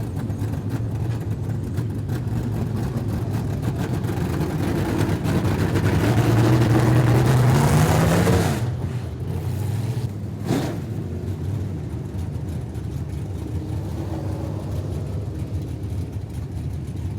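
Street stock race cars running on track, the engine note climbing in pitch and getting louder as a car comes close, peaking about eight seconds in and dropping off sharply as it passes. A short knock follows a couple of seconds later.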